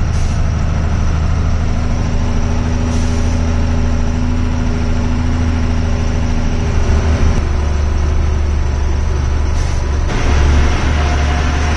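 Truck engine running with a steady low hum while the truck drives slowly over a rough road, heard from inside the cab, with a few short hisses and more road noise near the end.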